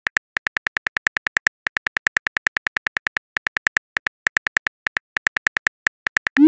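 Simulated phone-keyboard key clicks from a texting-story app: a rapid string of short, sharp ticks, about seven a second with brief pauses, as a message is typed out letter by letter. At the very end comes a short rising whoosh, the sound of the message being sent.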